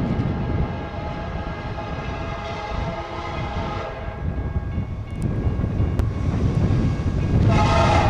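Diesel freight locomotive's multi-chime air horn sounding as the train approaches: one long blast of about four seconds, then a second blast starting near the end. Wind buffets the microphone underneath.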